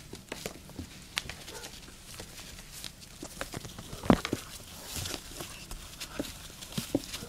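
Puppies' claws scratching and tapping on a plastic tub and rustling the puppy pads beneath them: irregular clicks and scrapes, with one louder knock about four seconds in.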